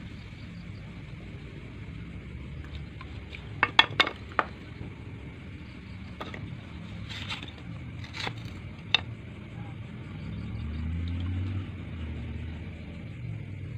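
Hot bearing-steel knife blade being quenched and swished in a water trough, with a few sharp clicks and splashes about four seconds in and again between six and nine seconds, over a steady low rumble that swells briefly near the end.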